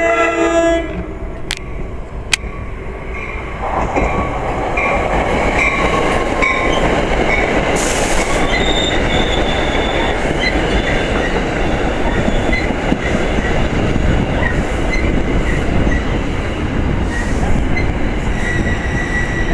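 New Jersey Transit push-pull commuter train running past close by, with an electric locomotive pushing at the rear. The end of a horn blast comes at the very start. About four seconds in, a loud rumble of wheels and coaches builds and then holds, with short, high wheel squeals coming and going over it.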